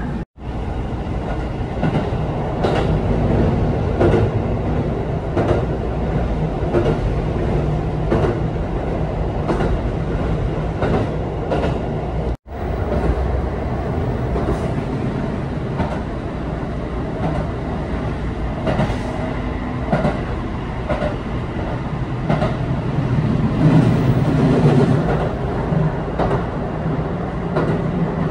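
Local diesel railcar on the Takayama Line running at speed: a steady low rumble with the wheels clicking over rail joints. The sound cuts out for an instant twice, near the start and about halfway through.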